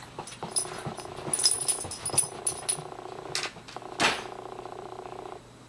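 Pembroke Welsh Corgi whining steadily in excitement while waiting for her owner to come home. The whine is one held tone that breaks off about five seconds in, with light high clicks over the first few seconds and two short sharp sounds shortly before it ends.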